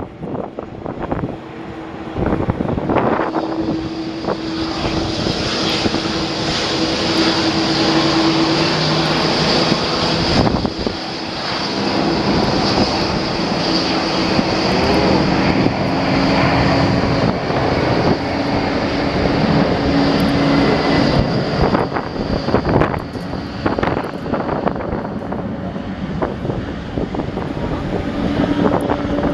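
Jet airliner's engines running loud as the aircraft passes, a steady high whine over a low drone and rumble, with gusts of wind buffeting the microphone.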